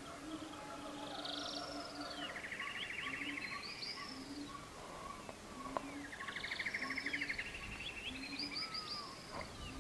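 Songbirds singing: repeated trilled phrases and short rising and falling whistles, with a soft low repeating tone underneath.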